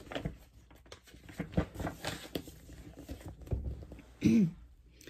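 Paper rustling with small knocks and handling noises as a picture book's page is turned. A brief voice sound comes about four seconds in.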